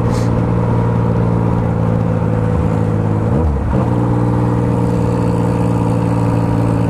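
Motorcycle engine running steadily while riding, its note dipping briefly and coming back up about halfway through.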